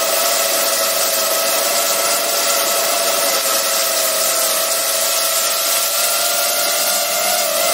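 FPV drone's motors and propellers whining steadily in flight, heard from the camera mounted on the drone, with a rushing hiss of prop wash and air over the microphone. The pitch dips briefly and rises again near the end.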